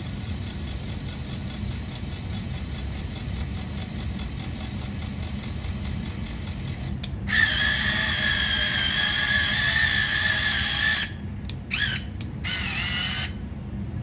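Electric drive motors and gearboxes of a DieCast Masters CAT 297D2 RC compact track loader. A low steady drone gives way, about seven seconds in, to a loud high whine of several tones as the tracks drive for about four seconds. A few short rising and falling whines follow near the end.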